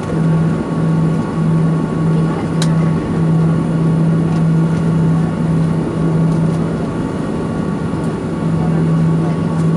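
Inside the cabin of a Boeing 737 jet airliner: the engines run at a steady taxi setting, a constant drone and rumble with a low hum, as the plane moves along the runway. One short click about two and a half seconds in.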